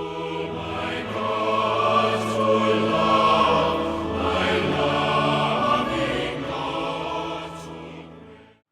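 Intro music of sustained choral voices, fading out near the end.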